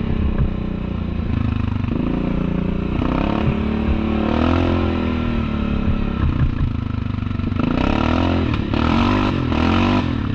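Yamaha Kodiak 700 ATV's single-cylinder engine running under changing throttle, its pitch rising and falling over and over, with some clattering from the machine.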